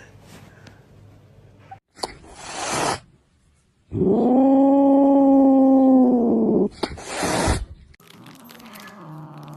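Tabby cat hissing, then giving one long, steady yowl of nearly three seconds, the loudest sound here, then hissing again.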